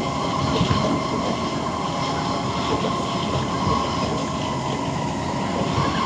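Kawasaki C151 metro train running at speed, heard from inside the car: a steady rumble of wheels on rail with a constant whine over it.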